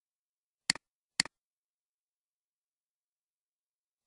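Two sharp computer mouse clicks about half a second apart, each a quick double snap of press and release, then another click at the very end. Nothing is heard between them.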